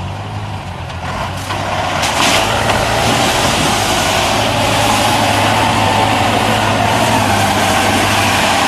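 Off-road trial truck's engine running hard under load as the truck drives down into and through a deep mud pit. The noise grows louder about a second and a half in and stays loud.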